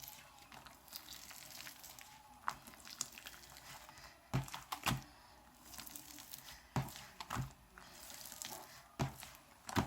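Slime being pulled and split apart by hand: the slime 'splitting sound', a series of short, sticky, wet snaps at irregular intervals.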